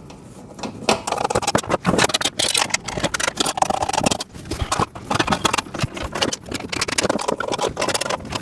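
Small steel bolts, nuts and metal parts clinking and rattling as they are handled and sorted, a quick run of sharp clicks that starts about a second in.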